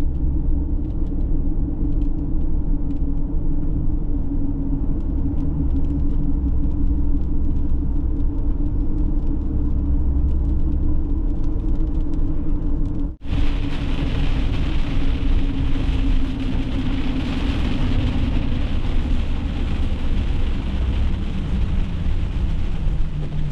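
Steady drone of engine and road noise heard from inside a van while driving. About halfway through it cuts to driving on a wet road in the rain, where a hiss of tyres on the wet road and rain joins the drone.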